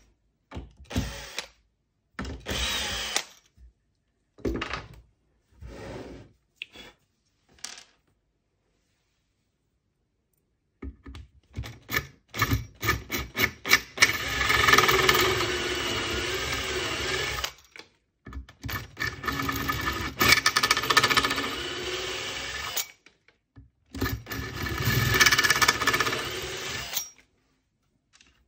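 Cordless drill boring out stripped screw holes in a chipboard cabinet top so that wooden dowels can be glued in. A few short bursts of the drill come first, then after a pause it runs in three longer spells of several seconds each.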